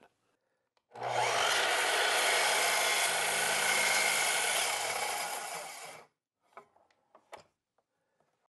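Sliding miter saw starting up about a second in, its motor running steadily while the blade cuts a small piece off a thin wood strip, then winding down about five seconds later. A few light knocks follow.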